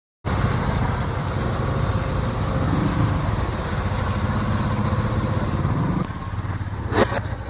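TVS Jupiter scooter's single-cylinder four-stroke engine running steadily with the abnormal engine noise the video sets out to fix. It drops in level about six seconds in, and a sharp click comes near the end.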